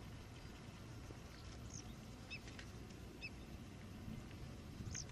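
Birds calling faintly: scattered short, high chirps, a few in quick pairs, over a low steady rumble.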